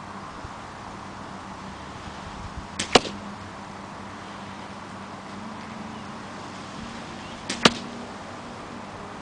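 Spring-powered bolt-action airsoft sniper rifle firing two shots about five seconds apart, each a sharp snap with a fainter click a split second before it.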